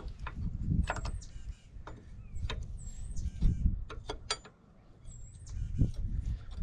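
Hand tools clicking and knocking on metal as a hydraulic hose fitting on a Cat 953C track loader is worked loose. A short high chirp repeats every two seconds or so.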